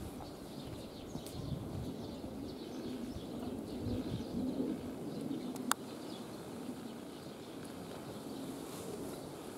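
Outdoor ambience with soft, low cooing calls, and one sharp click a little before six seconds in.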